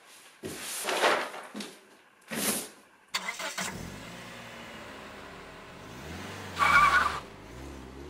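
Two swishes, then about three seconds in a car engine starts and runs, its pitch rising and falling as if driving, with a short louder burst about seven seconds in.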